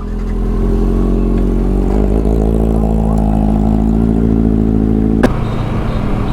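Motorcycle engine pulling under way, its note building over the first second and then holding steady. About five seconds in there is a sharp click and the engine note drops lower.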